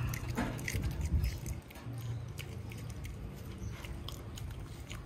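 A dog chewing and crunching mouthfuls of broccoli and carrot pieces, with irregular crisp crunches and wet chewing, over a steady low hum.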